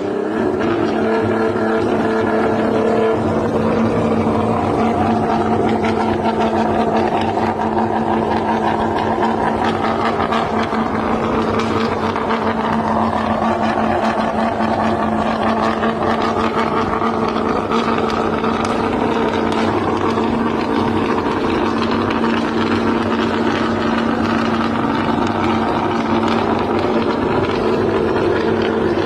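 Nissan GT-R's turbocharged engine running loudly at a steady held engine speed, with only slight wavering in pitch and a fine crackle throughout, while the exhaust spits flames.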